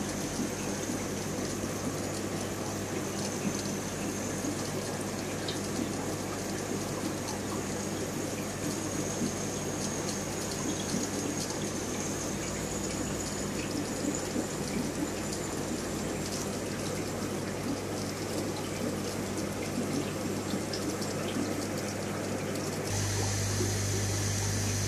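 Aquarium sponge filters bubbling, with water trickling, over a steady low hum. The hum and hiss step up louder near the end.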